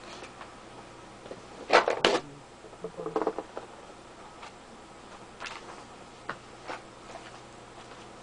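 Scattered knocks and clatters of things being handled as someone rummages around, searching; the loudest pair of knocks comes about two seconds in, with a cluster of smaller ones just after.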